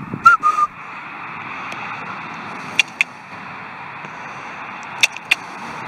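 A hunter's short, high squeak just after the start, then two pairs of sharp clicks about two seconds apart, made to get a rabbit in long grass to raise its head. Underneath is a steady outdoor hiss.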